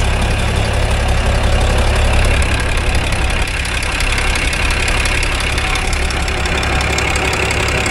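Big Bud tractor's diesel engine idling steadily, heard close with the hood raised. The engine is running hot, and a coolant leak is suspected.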